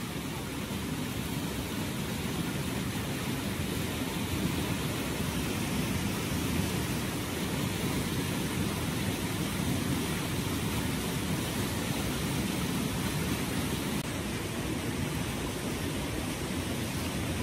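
Shallow rocky stream running over small rapids: a steady, unbroken rushing of water.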